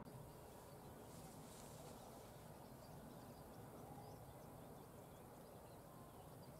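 Near silence: faint outdoor background with a few brief, faint bird chirps in the second half.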